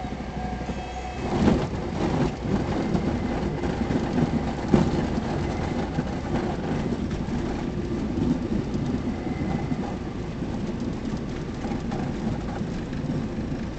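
Cessna 172 touching down on a rough dirt and grass airstrip about a second and a half in. The wheels rumble and jolt over the uneven ground during the rollout, with the engine at low power, heard from inside the cabin.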